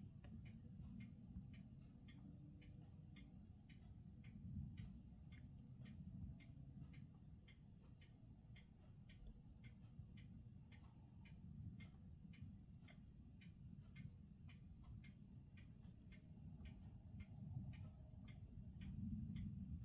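Faint regular ticking, about three ticks a second, over a faint low rumble.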